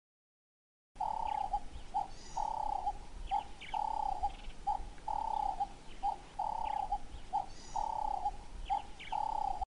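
A bird calling in a repeated two-part pattern, a long call then a short one, about once a second, with faint higher chirps above it. It starts suddenly about a second in and serves as a night-time sound effect.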